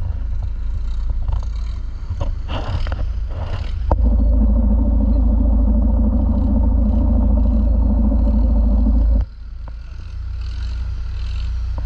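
Long-tail boat engine running with a low rumble. About four seconds in it jumps to a loud steady run, then drops back abruptly about nine seconds in.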